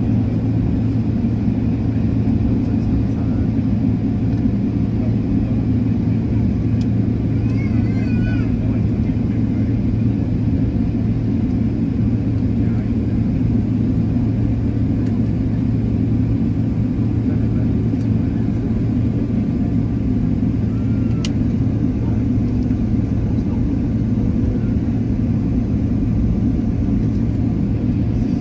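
Airliner cabin noise while taxiing: a steady low hum from the jet engines at low thrust and the cabin air system, heard from a window seat inside the cabin.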